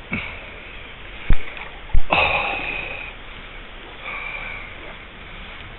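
Two sharp knocks of handling on the body-worn camera, a little over a second in and again about half a second later, the second followed by a brief hiss that fades within a second. The steady rush of a shallow river flowing runs underneath.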